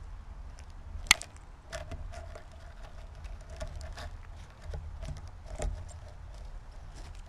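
Squirrel feeding at a birdseed tray close to the microphone: scattered small clicks and taps of seeds being picked over and cracked, with one sharp click about a second in, over a low steady rumble.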